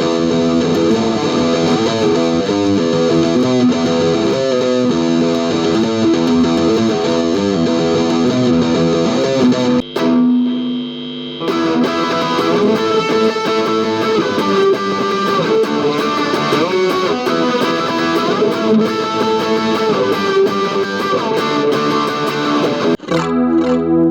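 Electric guitar, a Fender Stratocaster played with the fingers, through a Hotone Pulze Mini modelling amp with effects on, playing quick runs of notes. About ten seconds in a single note is held briefly before the playing resumes, and near the end the sound changes to held chords.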